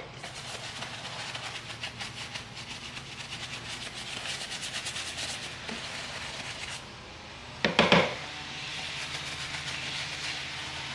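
A brush scrubbing a leather ball glove in quick back-and-forth strokes to clean it. A short, louder knock of handling comes about eight seconds in, then the scrubbing goes on more evenly.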